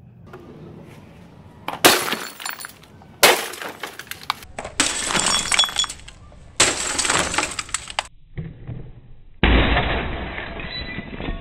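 An axe repeatedly striking a CRT computer monitor: about five heavy blows, each followed by the crash of the picture-tube glass shattering and the plastic case cracking, with fragments clinking. The last crash, near the end, is the loudest and duller than the rest.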